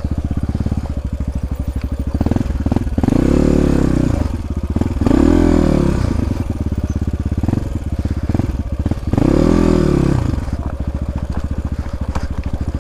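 Dirt bike engine ridden at low speed, running low between three throttle surges that rise and fall back, each lasting about a second and a half.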